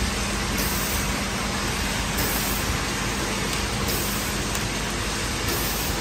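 Automatic bottle filling and capping line running, giving an even, steady hiss of machine noise with no distinct clicks or rhythm.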